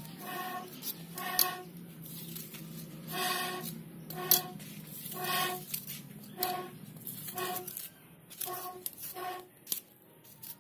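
A metal knife blade scraping and striking the charred end of a bamboo cooking tube: about a dozen uneven strokes, roughly one a second, each with a short pitched ring, thinning out near the end.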